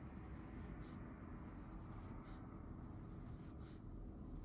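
Mechanical pencil scratching across paper as straight grid lines are ruled one after another, about one stroke a second.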